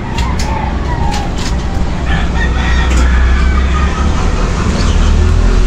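A rooster crowing, one long call about two seconds in, over a steady low rumble and a few sharp clicks.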